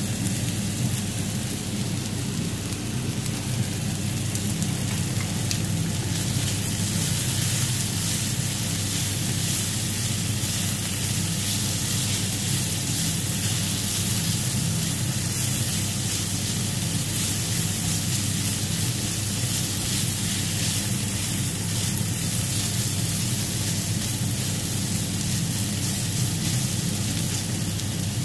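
Chicken tocino sizzling steadily as it fries in its sweet marinade in a nonstick pan, a continuous rain-like hiss over a steady low hum.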